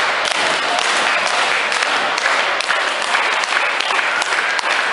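Crowd applauding: a steady patter of many hands clapping, with scattered voices.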